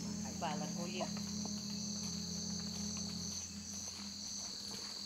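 Rainforest insects calling: a steady high-pitched buzz with faster pulsing chirps over it.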